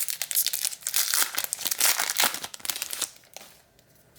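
Foil wrapper of a baseball card pack being torn open and crinkled by hand; dense crackling that stops a little over three seconds in.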